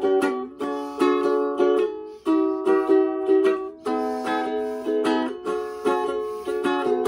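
Bonanza Homestead ukulele played solo, its chords strummed in a steady rhythm.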